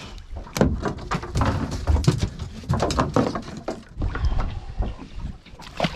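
Irregular rustling, knocking and clattering as a tangled fishing line and its rig are pulled about and picked apart by hand in a small boat.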